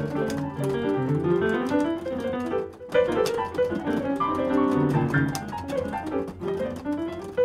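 Casio digital piano played with both hands, notes in the low and middle range sounding together. A brief break comes about three seconds in, followed by a strong chord.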